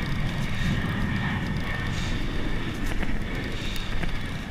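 Wind buffeting the microphone: a steady low rumble with no clear events.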